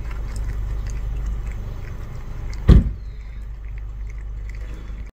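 Cat crunching dry kibble from a bowl, small crisp crunches over a steady low rumble, with one loud thump about two and a half seconds in.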